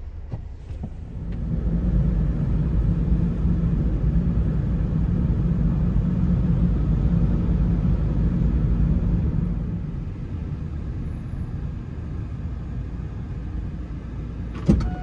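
Road rumble of a moving car heard inside its cabin, louder from about two seconds in and easing off around ten seconds in.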